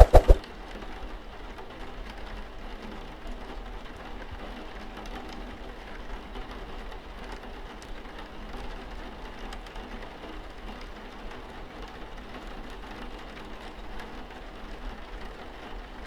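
Steady rain falling, with scattered drops ticking. It opens with two loud, sharp knocks in quick succession.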